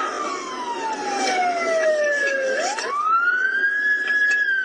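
Emergency vehicle siren wailing: its pitch falls slowly for about two and a half seconds, then sweeps quickly back up and holds high, and starts to fall again near the end.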